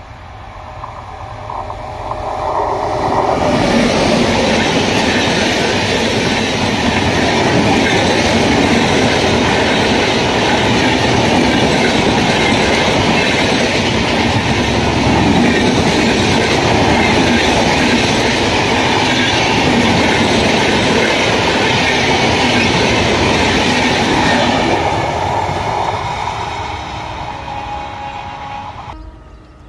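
High-speed express train of a WAP-7 electric locomotive and LHB coaches passing close by: the rush of wheels on rails builds over the first few seconds, holds loud and steady with clickety-clack as the coaches go by, then fades near the end.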